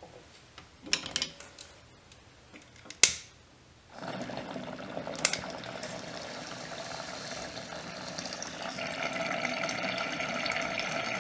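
Water bubbling and gurgling through the glass stones of a half-gallon mason jar bong as smoke is drawn through it. The bubbling starts about four seconds in and grows louder near the end. Before it come a few clicks and one sharp snap.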